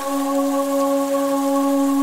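Ambient background music: a steady drone of several held tones, ringing like a singing bowl, over a soft even hiss.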